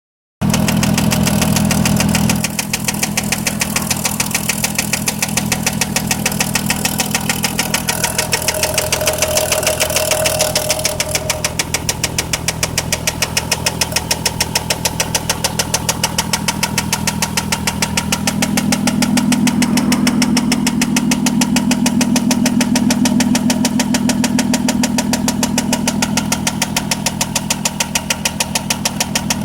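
2003 VW Jetta's 24-valve VR6 engine idling with a rapid, even knock, which the owner calls engine knocking.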